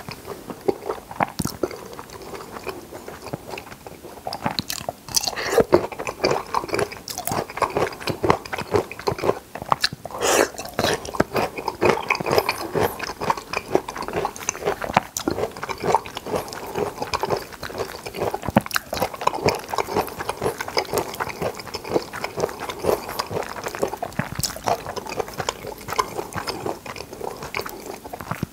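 Close-miked chewing of carbonara spaghetti: wet, smacking mouth sounds made of many quick irregular clicks.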